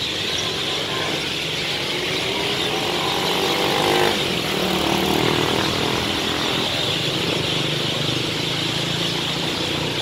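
Roadside traffic: a motorcycle engine revs with a rising pitch and cuts off about four seconds in, then engines run steadily. A constant high-pitched hiss of chatter sits over it.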